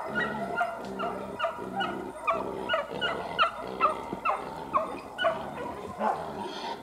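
Pack of scent hounds giving tongue in thick scrub: many short, falling yelps overlapping, about two or three a second. The hounds are on a wild boar and have just put it up.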